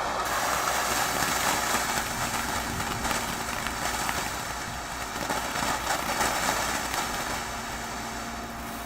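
Consumer firework going off: a continuous hissing crackle made of many small pops, with no big single bang, over a steady low rumble.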